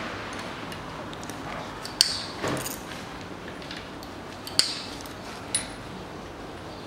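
Small metal clinks of a 5 mm hex key and the camshaft retaining-plate screws being handled at the end of a Daewoo Nexia 1.5 cylinder head: a sharp clink about two seconds in, a brief scrape just after, another clink about four and a half seconds in and a softer one about a second later, over a steady hiss.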